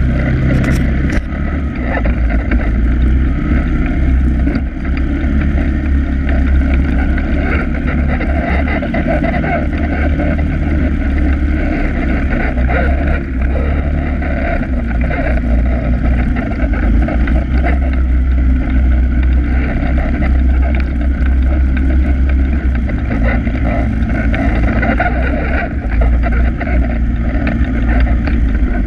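Polaris ATV engine running steadily as the quad rides along a dirt trail, heard through a camera mounted on the machine's front rack, deep and loud with little change in pitch.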